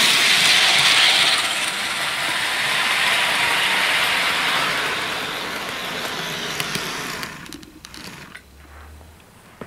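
Bachmann Harvest Express HO scale model train running on plastic-roadbed sectional track: the locomotive's motor and the cars' wheels make a loud whirring rattle as it passes close by, growing steadily fainter, down to a few scattered clicks over the last two seconds.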